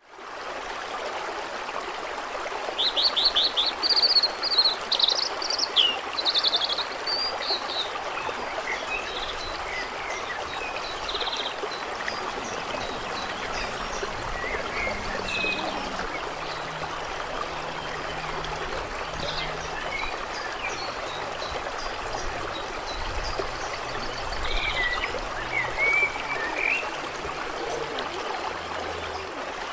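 Nature ambience: a steady rushing hiss like running water, with birds chirping and calling throughout, loudest a few seconds in.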